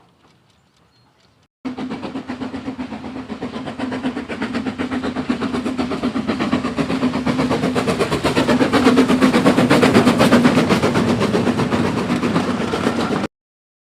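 Steam locomotives' whistles blowing together in a steady held chord over a fast, even beat from the running locomotives. It starts suddenly about two seconds in, swells louder and cuts off near the end.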